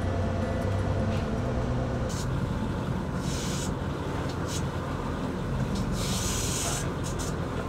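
Boat engine running as a steady low drone under wind and water noise, with two brief bursts of hiss about three and six seconds in.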